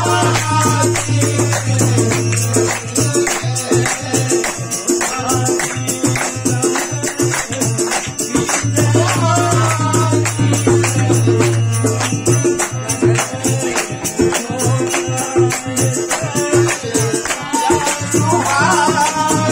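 Live devotional bhajan music: a dholak and jingling percussion keep a fast, steady beat under a keyboard, with a low held note that turns into a pulsing pattern in places and short melodic phrases coming in three times.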